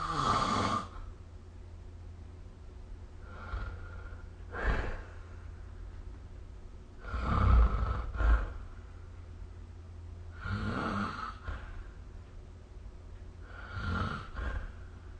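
A person snoring in their sleep, one snore about every three to four seconds, with quieter stretches of breathing in between. A steady low hum runs underneath.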